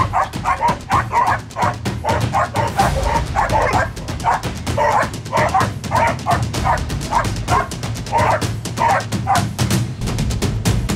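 A dog barking in quick succession, with barks coming two or three a second and stopping shortly before the end, over background music with a steady low beat.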